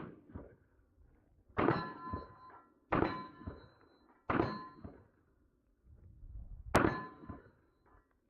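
Four pistol shots, spaced a second or two apart, each followed by the ringing clang of a steel target being hit.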